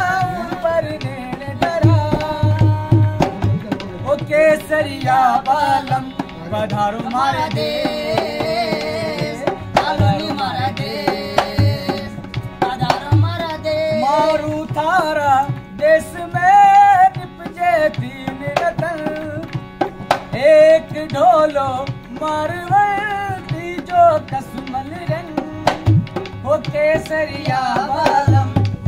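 A man singing a Rajasthani folk song and playing a dholak, beating a steady rhythm on the barrel drum under his voice.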